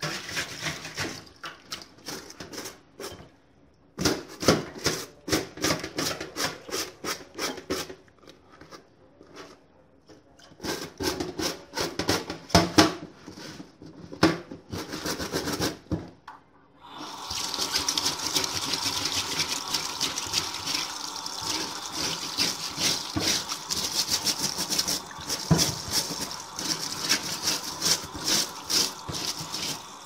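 Wet fabric vacuum-cleaner dust bag being scrubbed with a dish brush and rubbed by hand in a stainless steel sink, in runs of quick strokes with short pauses. About seventeen seconds in, the tap starts running onto the bag, a steady splashing under the scrubbing.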